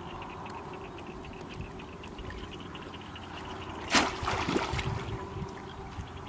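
Shallow water sloshing and trickling around woven bamboo fish traps as they are handled under the surface, with one sudden loud noise about four seconds in.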